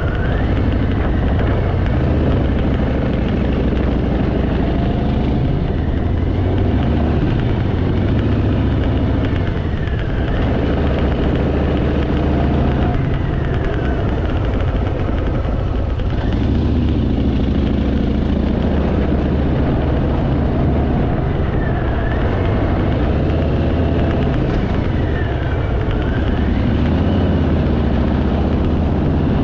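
Harley-Davidson Fat Boy V-twin engine running under way, its pitch rising and falling again and again as the throttle opens and closes.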